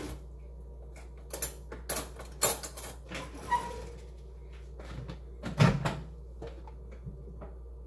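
Kitchen handling noises: scattered knocks and clicks, the loudest a dull thump about five and a half seconds in, over a steady low hum.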